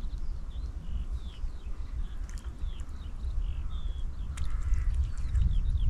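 Small birds singing: a quick string of short chirping notes, over a steady low rumble. One sharp click comes about three quarters of the way through.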